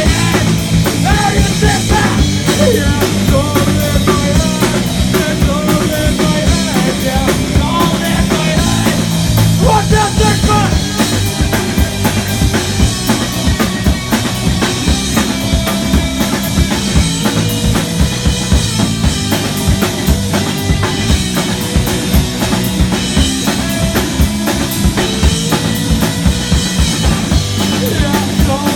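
A rock band playing live with no singing. A drum kit keeps a steady, driving beat with bass drum and snare under guitar lines.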